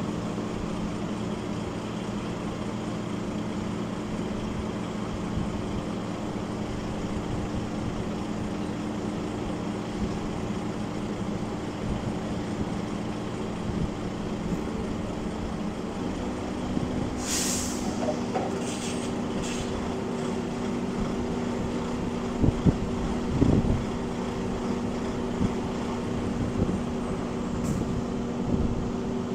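Articulated lorry's diesel engine idling steadily, its note stepping up slightly about sixteen seconds in. About a second later comes a sharp hiss of released compressed air, then two shorter hisses.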